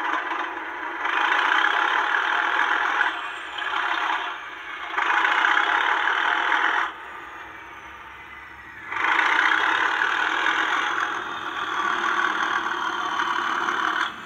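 Sound-fitted model Class 37 diesel locomotive's English Electric engine sound, working hard as the locomotive pulls away: the engine thrash surges up in repeated bursts, with a quieter lull of about two seconds midway.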